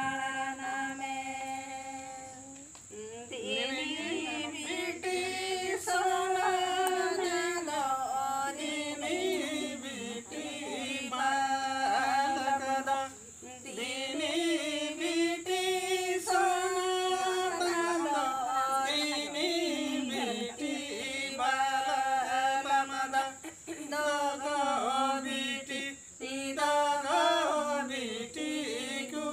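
A small group singing a Santali Sohrai song (sereng) unaccompanied, voices together in long held, sliding phrases with short breaks between verses.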